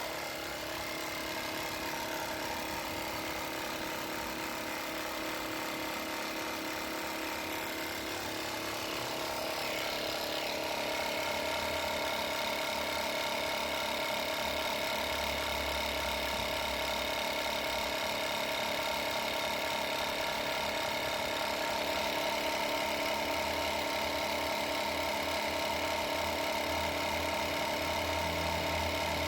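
Portable battery-powered air compressor running steadily while inflating a van's spare tyre, a constant motor hum that grows slightly louder about ten seconds in.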